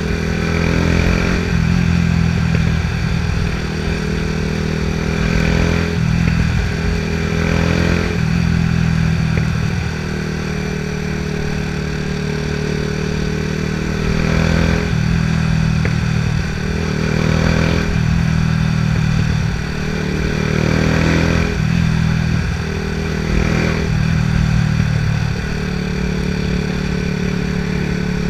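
Yamaha R125's single-cylinder four-stroke engine, through a Scorpion exhaust with the dB killer removed, idling and revved in short blips about seven times, with small crackles and pops as the revs drop.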